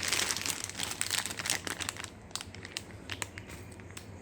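Crinkling and rustling of handled packaging, dense for about two seconds, then thinning to a few scattered clicks.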